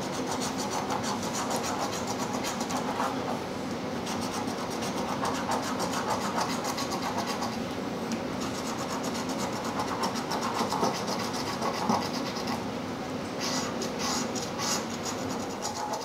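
A coin scraping the coating off a scratch-off lottery ticket in rapid back-and-forth strokes.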